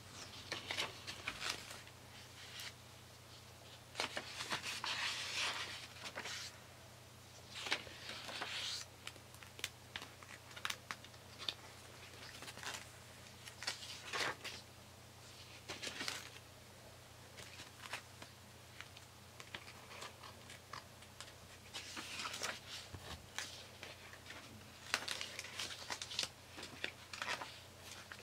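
Paper pages of a spiral-bound journal being turned and smoothed flat by hand: a series of irregular papery swishes and rustles with small ticks and taps between them, over a faint steady low hum.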